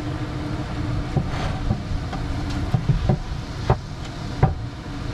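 A handful of sharp knocks of wooden boards being handled and set in place, the two loudest near the end, over a steady low rumble.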